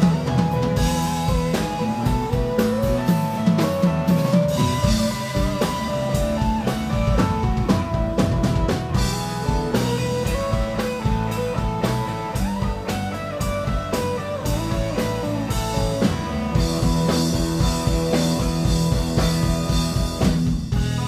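Live blues-rock band playing an instrumental passage: semi-hollow-body electric guitar playing lead lines over electric bass and a drum kit. The drums stop near the end, leaving the instruments ringing.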